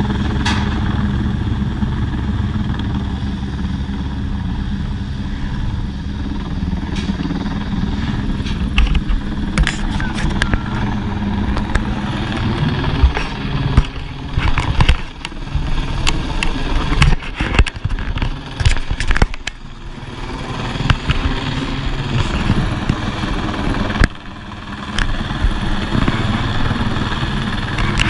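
Helicopter hovering overhead on a longline lift, its rotor and turbine giving a steady fast low beat. From about eight to twenty seconds in, irregular knocks and bumps cut across it.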